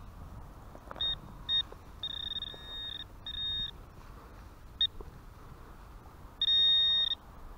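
Metal detector beeping on a buried metal target: about six high, single-pitched beeps, some short and some drawn out, the longest and loudest near the end.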